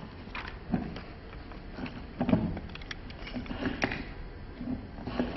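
Irregular knocks and rustles from a handheld microphone being handled while papers are shuffled, over a low steady hum.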